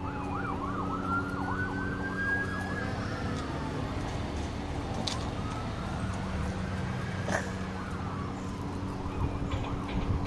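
Emergency-vehicle siren alternating between a fast yelp and a slow wail that rises and falls twice, over a steady low hum, with a couple of short clicks.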